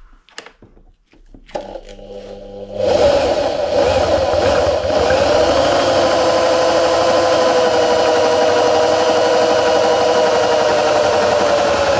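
Power drill boring through a flat aluminium bar with a twist bit. The motor spins up about two to three seconds in, then runs steadily under load with a steady whine.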